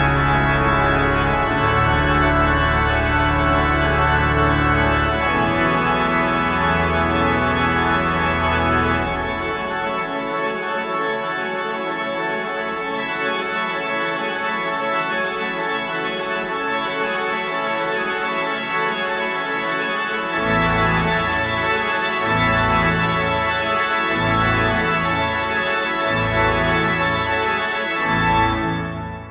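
Pipe organ playing a shimmering, repeated fast figure with minimal changes over low pedal notes. The bass falls away about nine seconds in and comes back about twenty seconds in as a short, pulsing low motif. The final chord cuts off near the end and its reverberation dies away.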